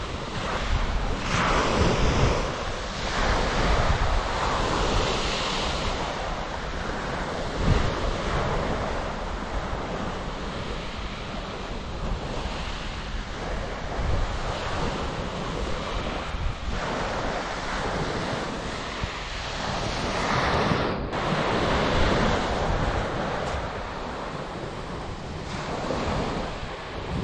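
Small sea waves breaking and washing up a shingle beach, the surf rising and falling every few seconds, with wind buffeting the microphone.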